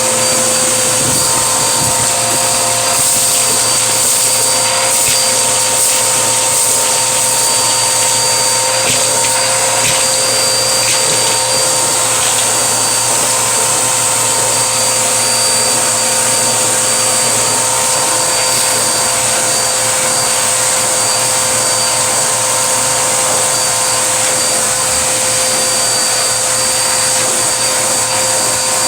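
Vacuum cleaner running steadily with a constant motor whine and rushing air.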